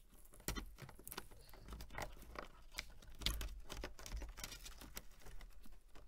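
Soft irregular rustling and light clicks of a taped bundle of car wires being handled and pushed through a grommet hole into a tailgate.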